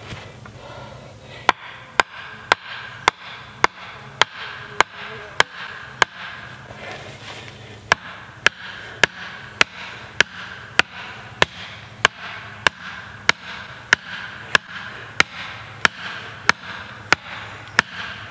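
An upright wooden support post being driven into the ground by steady, even blows to its top, about two strikes a second, with one short pause partway through.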